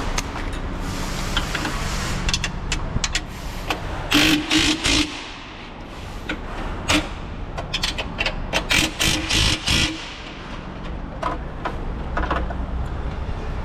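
A power tool running in two short bursts, about four seconds in and again around nine seconds, each lasting about a second, among scattered clicks and clatter of parts being handled over a steady low hum.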